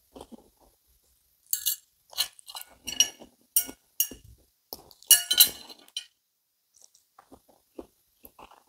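Metal knife and fork clinking and scraping against a ceramic plate while cutting a sausage: a quick run of sharp clinks for a few seconds, loudest a little past the middle, then only faint soft ticks near the end.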